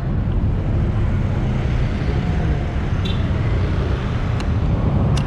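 Road traffic noise: motor vehicles running close by with a steady low engine rumble and a few faint clicks.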